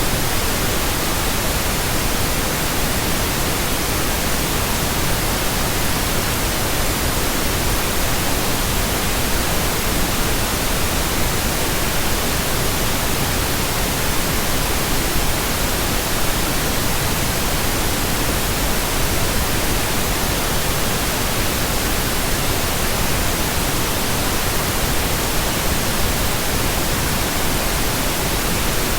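Steady synthetic pink noise: an even, unchanging hiss spread across low and high pitches alike.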